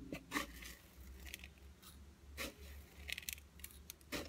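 Yellow granulated candle wax being scooped from a glass bowl and sprinkled into a glass jar: a few short, faint rustles of the grains.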